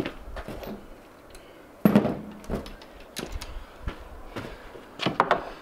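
Footsteps and a series of sharp knocks and clicks from tools being handled, about half a dozen, with the loudest knock about two seconds in and a quick cluster near the end.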